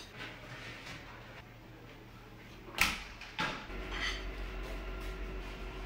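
A commercial kitchen oven: light clatter, then the door bangs shut about three seconds in with a second knock just after, and a steady low hum of the oven running starts.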